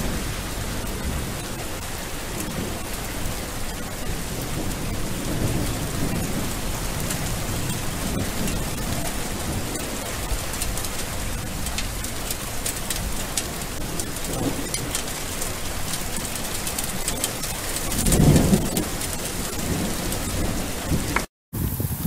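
Steady rain falling on leaves, a dense hiss full of fine drop ticks, with low rumbling swells rising and fading under it. The biggest swell comes about 18 seconds in. The rain cuts off abruptly near the end.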